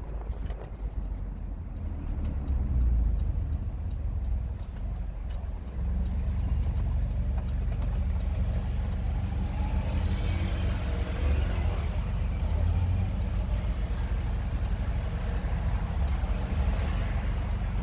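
Hyundai Tucson 2.0 running with its rear muffler removed, a steady low exhaust note that gets louder about six seconds in.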